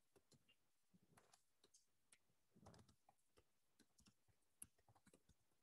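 Faint computer keyboard typing: scattered, irregular key clicks, the busiest run a little under three seconds in and one sharper click near the end, against near silence.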